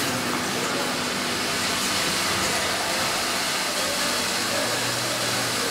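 Semi-automatic cask washer running a wash cycle on two upturned casks: a steady rushing hiss of spray inside the casks over a low machine hum. The hum grows stronger about a second before the end.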